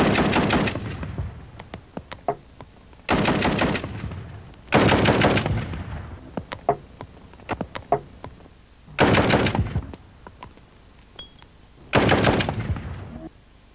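Colt M16 rifle in .223, fitted with a DTA muzzle brake, firing five short bursts of full-automatic fire, each about half a second to a second long, with a few faint single cracks in between.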